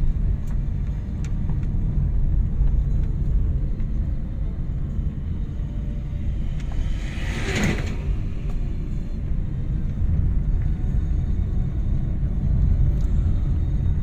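Inside a moving car's cabin: a steady low rumble of engine and tyres on the road. A brief higher-pitched sound cuts in about seven and a half seconds in.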